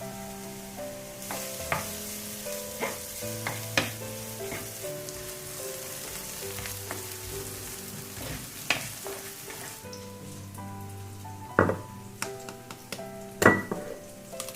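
Food frying in hot oil in a pan, sizzling, with a spatula stirring and knocking against the pan several times; the sizzle dies down after about ten seconds, and the loudest knocks come near the end. Soft background music plays throughout.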